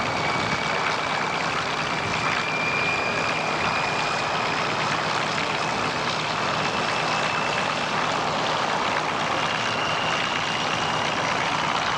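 Aircraft engine running steadily, with a high whine that rises slowly in pitch.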